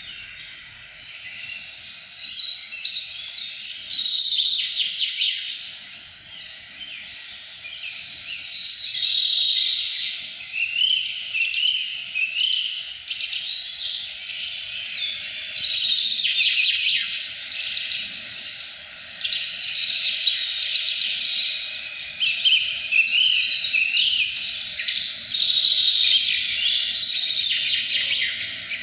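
Many small birds chirping together in a dense, continuous chorus of overlapping short calls, swelling louder several times.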